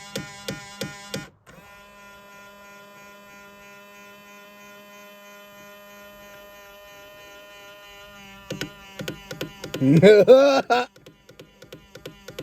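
Power side-mirror motor on a 2000 Ford Explorer, making its odd noise: regular clicking about three times a second, which stops abruptly after about a second, then a steady electric buzz. Near the end a louder, wavering, pitched sound rises and falls.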